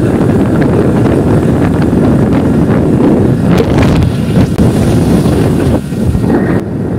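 Loud wind buffeting the microphone of a camera carried on a moving motorcycle, a steady low rumble of rushing air with a brief dip near the end.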